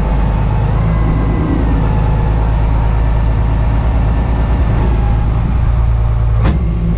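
Truck engine running steadily, a low even hum, with one sharp click about six and a half seconds in.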